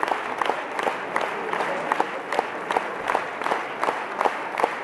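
Theatre audience applauding at a curtain call, a dense steady clapping with sharp individual claps standing out close by.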